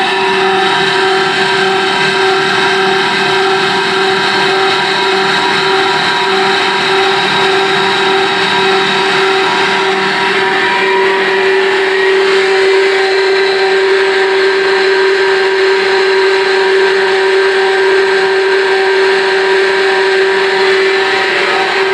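Micro-hydro cross-flow water turbine and its generator running steadily, producing about 220 volts. A loud, even machine hum with a strong high-pitched steady tone and a hiss behind it.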